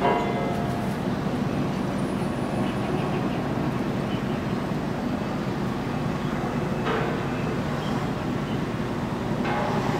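Steady low engine drone, with a brief louder sound right at the start.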